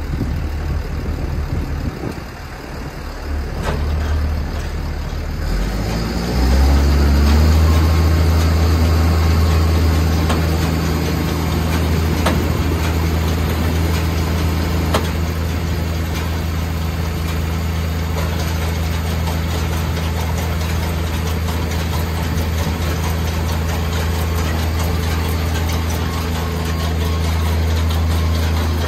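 Tractor engine running. A few seconds in, its revs climb over about two seconds, then it holds a steady low hum, with a few light knocks.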